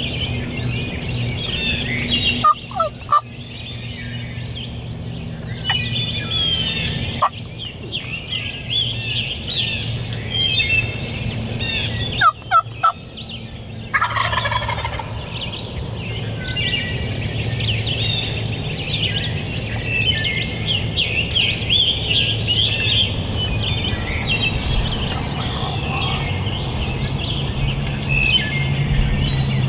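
Wild turkey gobbler gobbling loudly four or five times: a double gobble a few seconds in, one around seven seconds, and a run of gobbles around twelve to fourteen seconds in. Songbirds chirp in the background.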